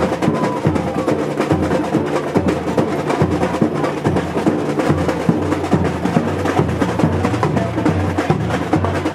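Samba carnival music with dense, driving drumming and a steady bass line.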